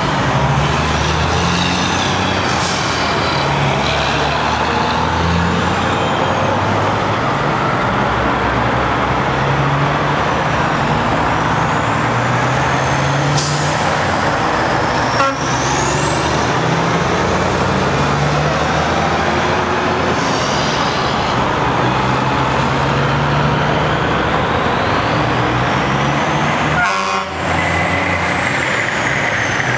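Diesel semi-truck tractors hauling shipping containers drive past one after another, their engines running loudly and changing pitch as each one pulls through the turn. High whines rise and fall over the engine noise, and a short rattling burst comes near the end.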